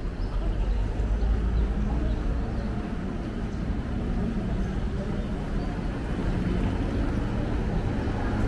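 City street ambience: a steady low rumble of traffic with indistinct voices of people nearby.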